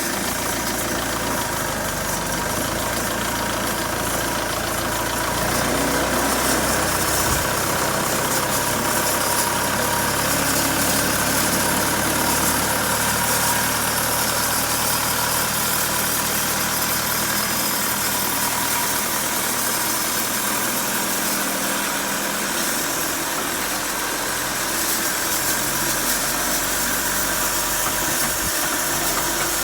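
Cummins B3.3 four-cylinder diesel engine powering a sawmill, running steadily at a constant speed.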